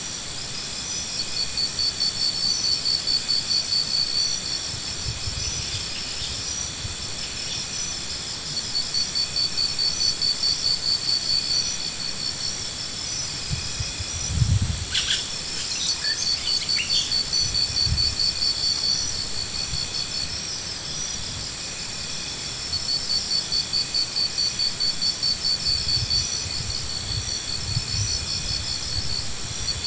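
Insects trilling in repeated high pulsing trains a few seconds long, over a steady high drone. A dull knock about halfway through.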